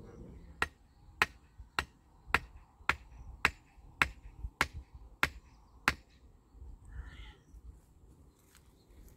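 A wooden stake being driven into the ground with about ten sharp, evenly spaced blows, a little under two a second, stopping about six seconds in.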